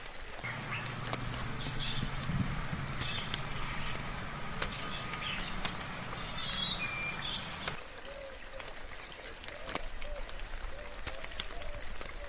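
Birds chirping in short high calls over scattered raindrops. A low steady hum sits under the first two-thirds and stops at about eight seconds.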